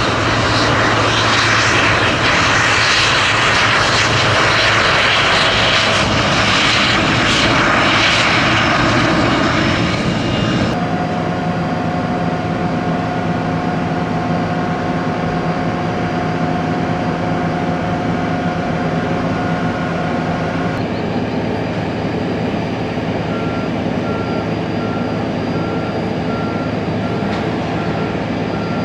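Jet airliner engines: loud rushing engine noise for about the first ten seconds, then, after a sudden change, a steadier engine whine with held tones. About two-thirds of the way through, a vehicle's reversing beeps begin, repeating evenly.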